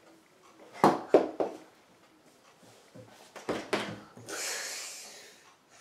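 Small plastic toy figure handled and knocked against a cloth-covered table: three sharp taps about a second in, two more past the middle, then a soft hiss lasting about a second.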